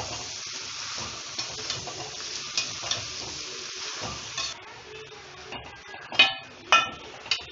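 A spatula stirring and scraping mashed potato and onion around a metal kadai over a steady frying sizzle, as the potatoes are mixed into the onion base. The sizzle quietens about halfway through, and near the end come two sharp metallic clanks of the spatula against the pan.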